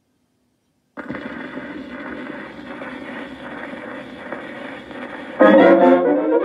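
Stylus set down on a spinning 78 rpm shellac record about a second in, followed by the steady hiss and crackle of surface noise in the lead-in groove. Near the end the 1928 dance-band recording starts, much louder, with brass.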